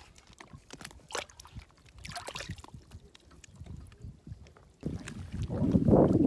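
Brief scrapes and soft knocks of a hand digging into a muddy riverbank. About five seconds in, a loud, rough, low rumble of wind on the microphone takes over.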